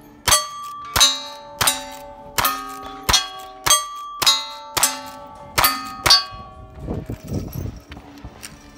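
Lever-action rifle, a Rossi clone of the Winchester 1892, fired ten times in quick succession, each shot followed by the bright ring of a struck steel target.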